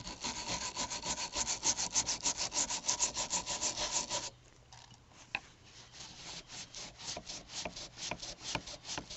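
Steel wire brush scrubbing rust off the steel frame of an antique revolver in quick back-and-forth strokes, loosening rust that rust remover has softened. About four seconds in, the strokes turn lighter and slower.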